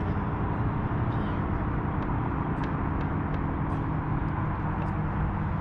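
Steady drone of road traffic, a continuous low rumble with a few faint ticks over it.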